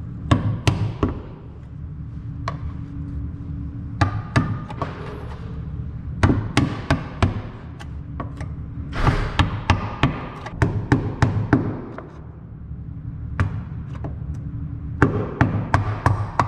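Long thin steel tool tapping and scraping against the steel rear floor pan of a VW MK5 GTI at its ground-off spot welds, in runs of sharp metallic taps with short pauses between.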